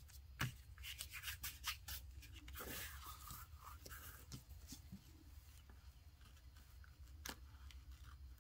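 Faint rubbing and scattered light taps of hands pressing and smoothing athletic tape down onto cardboard, with a longer scratchy rub about three seconds in.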